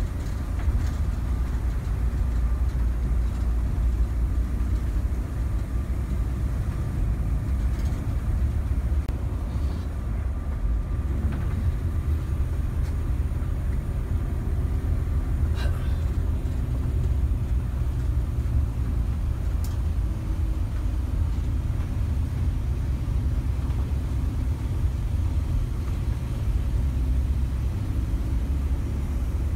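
Mercedes-Benz OH 1626 NG coach on the move, heard inside the cabin: its rear engine and road noise make a steady low rumble, with a couple of faint clicks from the cabin.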